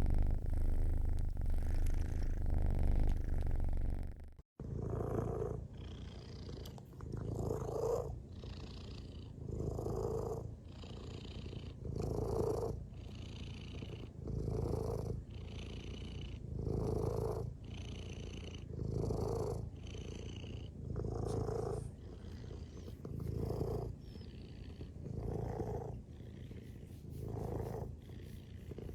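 Domestic cat purring. About four and a half seconds in, a steady low purr cuts off and a second recording starts, a purr that swells and fades about every two seconds.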